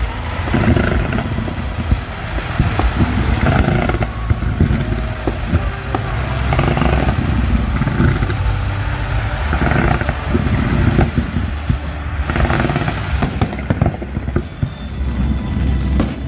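Fireworks display: aerial shells bursting in quick succession, a dense run of bangs over a steady low rumble, with crackling.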